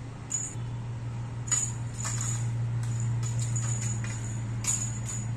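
A small cat toy jingling in short, irregular bursts as cats bat at it, with a few sharp taps on the tile floor. A steady low hum runs underneath.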